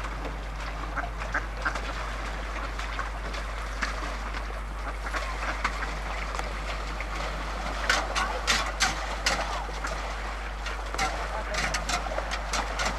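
Ducks quacking, a scatter of short calls that come thickest about eight seconds in and again near the end.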